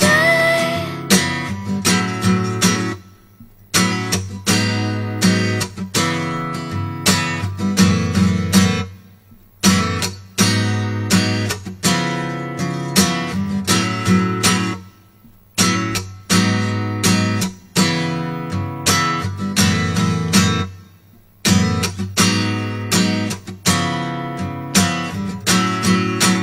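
Acoustic guitar strumming a song's instrumental outro, in phrases of about six seconds with a short break between each.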